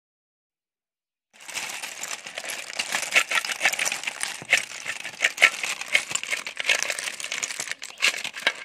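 Dozens of cooked snail shells clattering and rattling as they are tipped out of a metal pan onto a stainless steel tray: a dense run of small hard clicks that starts about a second and a half in.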